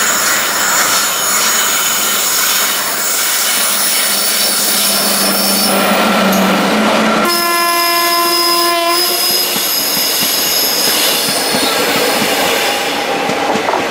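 WAP-4 electric locomotive and its passenger coaches running past, with steady train noise, a high squeal from the wheels on the curve and a low hum until about seven seconds in. Then the locomotive's horn sounds once, a single steady blast of under two seconds.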